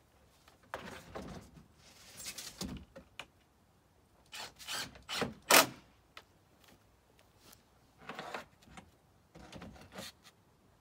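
Skirting trim being fitted along the base of the house: it scrapes and rubs against the house in short uneven spells. The loudest sound is a single sharp knock about five and a half seconds in.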